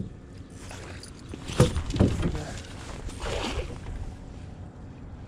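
Two knocks in an aluminum fishing boat, about half a second apart, around a second and a half in, followed a little later by a fainter short rushing sound.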